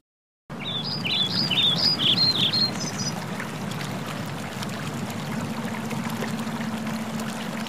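A bird sings a quick run of chirping notes during the first three seconds over a steady rushing noise and a low steady hum.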